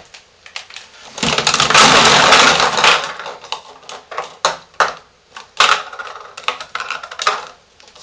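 Empty lotion jars being taken out of a cardboard box and set down on a table: about a second in, two seconds of loud rustling and rattling in the box, then a run of light clicks and knocks as the jars are put down one after another.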